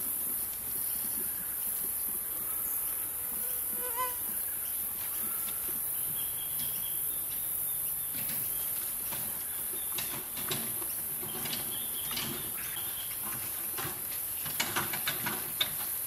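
Steady high-pitched drone of an insect chorus, with a few short faint chirps near the start and scattered sharp clicks and knocks in the second half.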